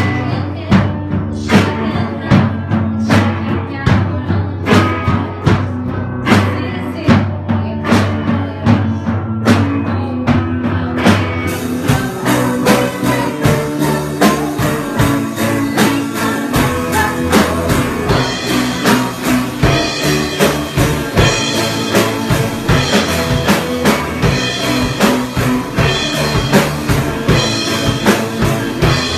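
Rock band playing live: drum kit keeping a steady beat under electric guitars and bass, with a female lead singer. A little over ten seconds in, cymbals come in and the band gets fuller.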